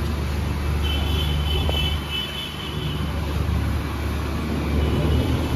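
Steady low rumble of road traffic and engines.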